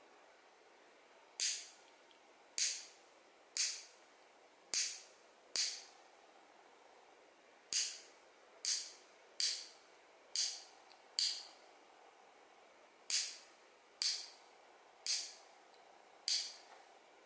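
Steel lever nail clipper snipping fingernails: about fourteen sharp clicks, roughly one a second, in runs with short pauses between them.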